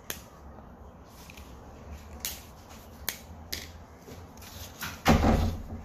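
Sharp plastic clicks of a felt-tip marker being uncapped and its cap set down on the plastic marker case, about four in all. A louder dull thump comes about five seconds in.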